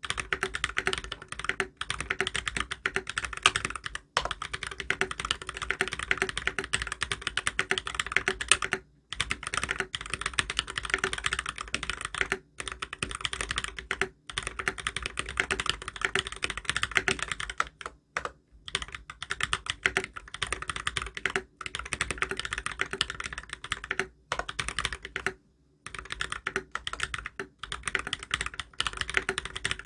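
Fast, continuous typing on an XO V2 mechanical keyboard with tactile Holy Panda switches lubed with Krytox 205g0, a brass plate and ABS keycaps: a dense stream of keystroke clacks with a handful of brief pauses.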